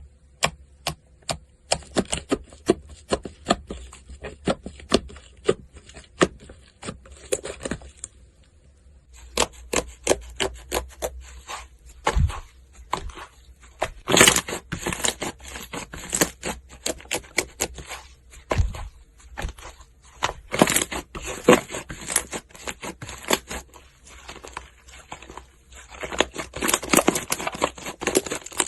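Slime being squeezed and poked by hand, giving a run of irregular sticky clicks and crackling pops, several a second, with a few louder pops near the middle and the end.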